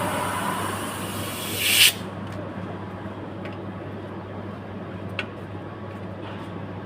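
Compressed air hissing loudly from an air line into an electric bike tyre that won't take air, cutting off about two seconds in. After that a low steady hum with a few faint clicks.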